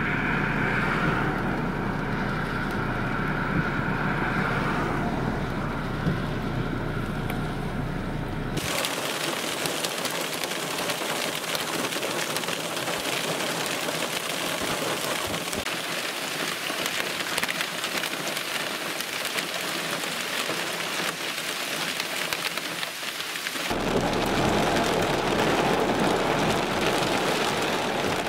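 Wind moving through a wheat field. After about nine seconds it gives way to a steady, bright hiss of heavy rain and hail pouring down, and near the end a fuller rush of wind-driven rain.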